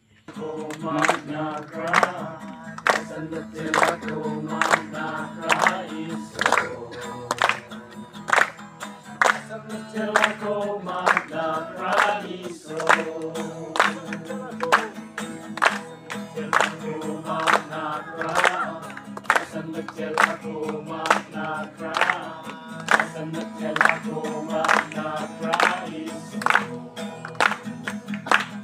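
A group of people singing a worship song to a strummed acoustic guitar, with a steady strumming rhythm throughout.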